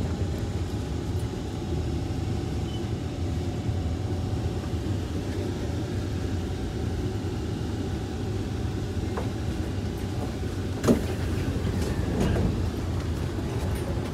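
Steady low rumble of a stopped MRT train, a Kawasaki C151, and the busy station around it, with one sharp knock about eleven seconds in.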